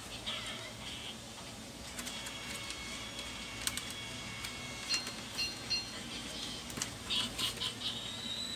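Small clicks and knocks of plastic parts and wiring being handled inside an opened induction cooker's housing, scattered at first, then a quick run of clicks near the end.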